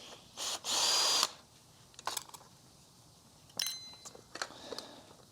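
Power drill spinning in two short bursts, the second and louder lasting about half a second with a steady whine, then a few light clicks and knocks of handled parts.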